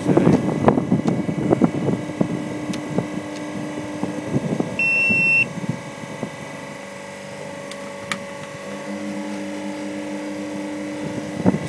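Knocks and rattles of handling for the first two seconds, then a single short high-pitched beep from a volt stick about five seconds in, over a steady machinery hum.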